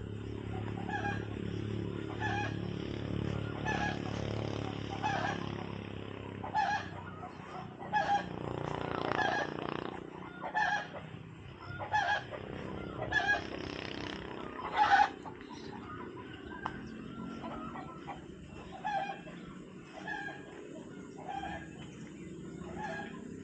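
Chickens clucking: a short cluck repeats about once a second throughout, with a few louder calls in the middle.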